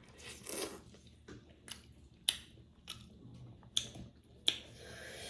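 Close-up eating sounds: a person chewing and biting into juicy buffalo-meat momo in soup, with three sharp clicks a couple of seconds in, near four seconds and about four and a half seconds in.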